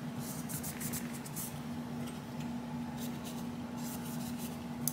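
Soft rubbing and rustling of a cloth patch wiped over a Beretta 8045 Mini Cougar pistol frame, with a few faint scuffs in the first second and a half and again near the end.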